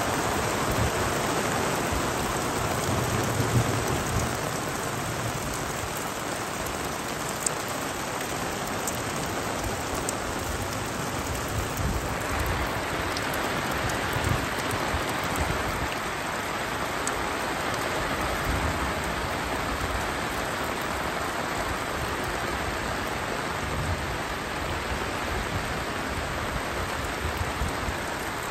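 Heavy rain falling steadily in a thunderstorm, a dense even hiss, with a few sharp ticks from drops hitting close by.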